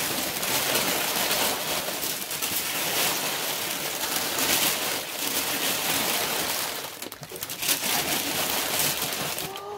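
Brown kraft packing paper crinkling and rustling as it is handled and pulled out of a shipping box, a dense crackle with a brief softer patch about seven seconds in.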